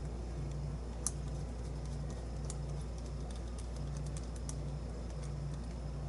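Small metallic clicks and ticks as a threaded retaining ring is unscrewed by hand from the back of a lock cylinder, with one sharper click about a second in, over a low hum.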